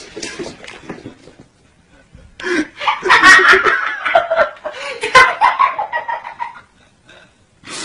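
Laughter in bursts: it trails off in the first second or so, then breaks out again strongly about two and a half seconds in and dies away a second before the end.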